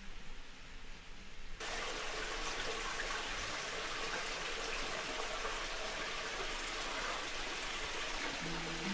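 Running water, a steady rushing splash that starts suddenly about a second and a half in after a quieter hiss.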